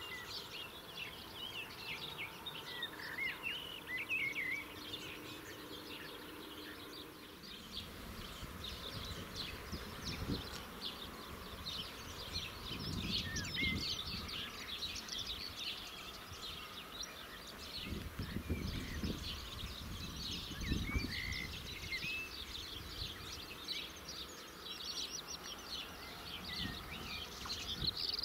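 Outdoor ambience of small birds chirping and trilling steadily, with a low rumble that comes and goes from about a quarter of the way in.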